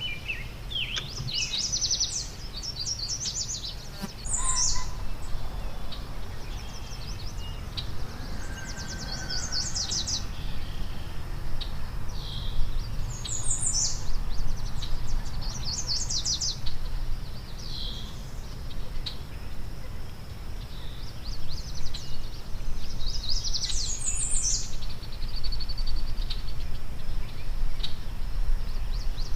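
Songbirds singing: short bursts of rapid, high chirped trills that come again every few seconds, over a steady low rumble.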